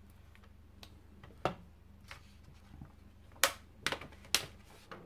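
A handful of short, sharp clicks and crackles of paper as a printed sheet is peeled off a homemade gelatin printing plate and handled, the loudest three close together about three and a half seconds in, over a faint low hum.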